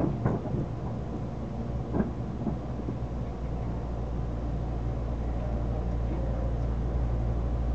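Inside an Odakyu limited express train as it comes to a stop at a station platform: a couple of knocks in the first two seconds as it halts, then the steady low hum of the standing train.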